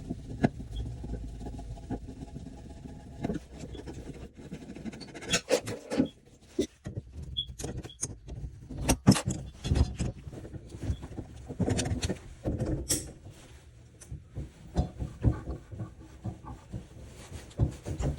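Irregular clicks, knocks and scraping of hand work on shower valve parts, with the sharpest knocks a little past the middle.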